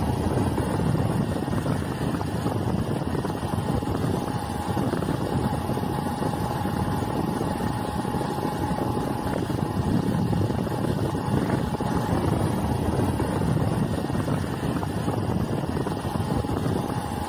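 Motorcycle riding along, its engine running steadily under wind noise on the microphone.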